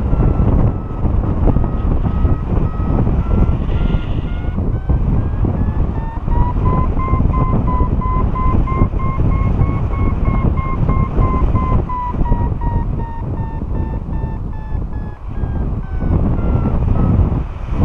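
Heavy wind buffeting on the microphone of a paraglider in flight, with a variometer beeping rapidly over it. The beeps rise in pitch about six seconds in and fall back near the end, the vario's sign that the glider is climbing in lift at a changing rate.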